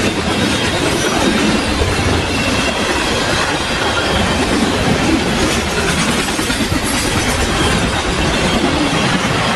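Freight train cars rolling past at speed: a steady, loud rumble and rattle of steel wheels on the rails that holds unbroken throughout.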